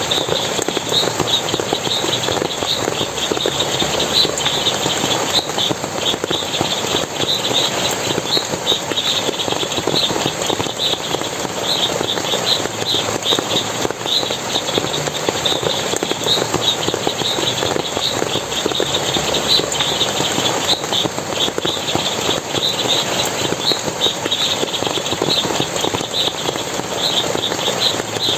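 Forest water splashing and running steadily, over a constant chorus of short, high chirps repeating a few times a second.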